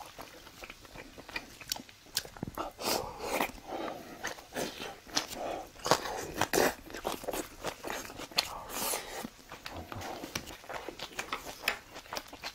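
A person chewing food close to the microphone, with many sharp wet smacks and crunches throughout.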